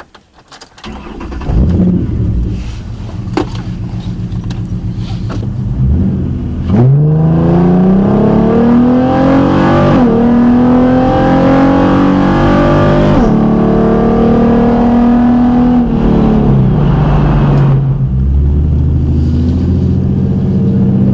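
2008 Ford Mustang 4.0 V6 with Cherry Bomb glasspack exhaust and long-tube headers accelerating hard through the gears. The engine note climbs, drops sharply at two upshifts, then eases off and settles into a steady lower drone.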